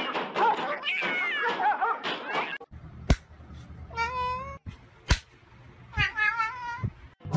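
A ginger domestic cat meowing twice, each a short pitched call, the second wavering. Sharp clicks come once before the first meow and once between the two.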